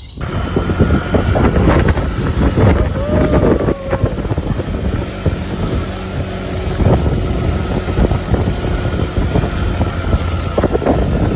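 Small moped engine running steadily on the move, with wind buffeting the microphone.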